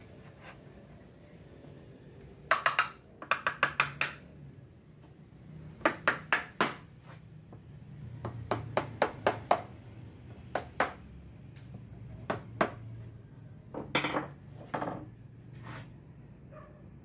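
Two small mallets tapping a pine board down into a wooden frame: short runs of quick, sharp knocks, repeated several times, then a few single knocks near the end.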